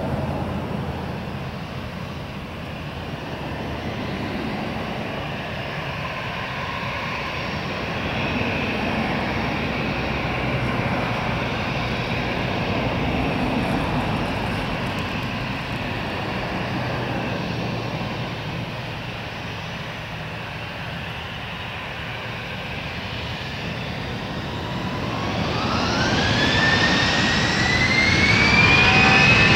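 An Airbus A320's twin CFM56 turbofan engines running at low thrust as it rolls into position, then spooling up for takeoff from about 25 seconds in, with a whine that rises steadily in pitch as the engines grow louder.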